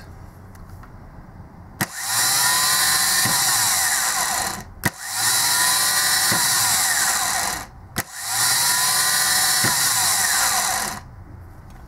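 A Bosch 110-series starter motor run three times on a bench. Each time a sharp solenoid click throws the pinion out and the motor spins for about three seconds with a high whirring whine. It spins freely and works properly after its new brushbox and bushing.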